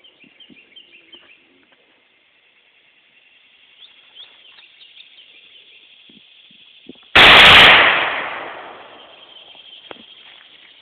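A single loud 7.62×51 mm (.308) rifle shot about seven seconds in, with its report rolling away over about a second and a half. The bullet hits the Tannerite without setting it off, so no explosion follows.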